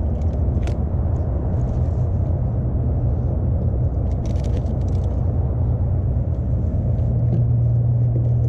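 A hooked sheepshead splashing at the surface beside a kayak, the clearest splashing about four to five seconds in, over a steady low mechanical rumble.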